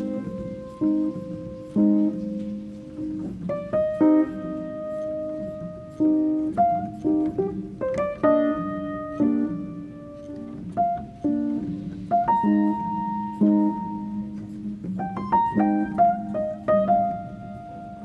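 Background music: a piano playing slow chords and a melody, notes struck about every second or two and left to ring.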